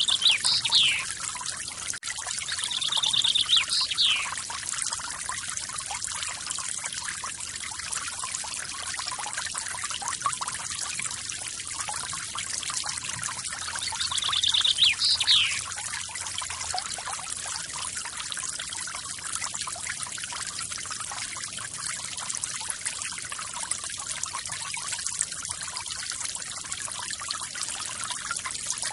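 Steady splashing rush of a small forest waterfall. A bird calls three times over it, near the start, about three seconds in and about fifteen seconds in, each call a short buzzy trill ending in a quick falling note.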